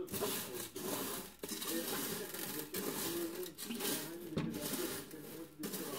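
Light scratchy clinking of crushed decorative glass chips being spread and pushed around by hand, over background music with a singing voice.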